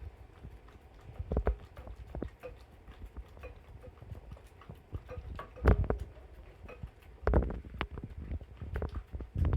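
A dog eating wet dog food: irregular smacking and licking clicks, with a few louder knocks about a second and a half in, near six seconds and near seven and a half seconds.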